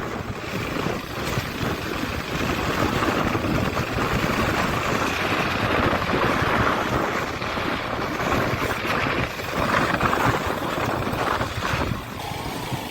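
Motorcycle on the move, its engine running under a rushing wind noise on the action camera's microphone that swells and eases.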